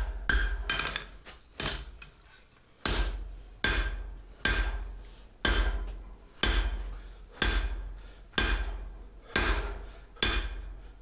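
Hand hammer striking hot flat bar on an anvil, about one blow a second after a short pause near the start, each blow ringing briefly: drawing out the bit of a pair of split-bar pickup tongs.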